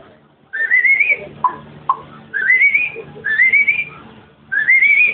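Whistling in four short notes, each rising and warbling, with a couple of short blips between them.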